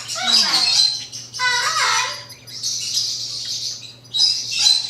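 Severe macaw calling in a run of short squawks and chirps, some harsh and some with a clear pitched tone.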